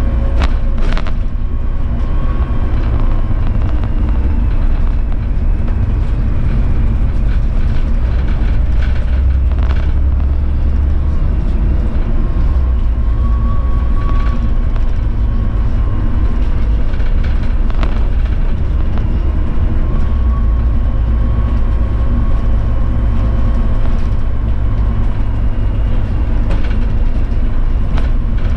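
City bus driving along a winter road: a steady, loud low rumble of engine and tyres, with a faint steady whine. A few brief knocks and rattles come through it.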